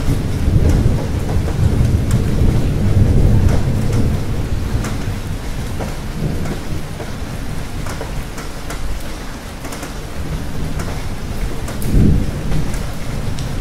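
Steady rain with rolling thunder. A heavy low rumble in the first few seconds slowly eases, and a brief, louder rumble comes near the end.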